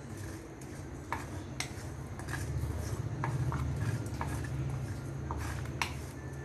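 Mustard and fennel seeds being stirred as they dry-roast in a pan: scattered sharp clicks over a low steady hum.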